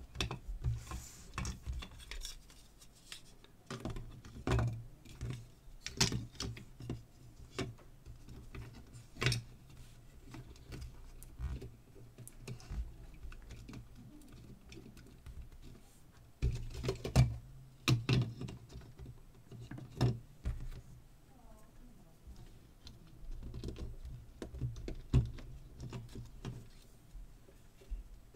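Irregular clicks, taps and light knocks of hard plastic parts being handled and fitted together as the housing of a digital tire pressure gauge is reassembled by hand, with a louder run of clicks a little past halfway.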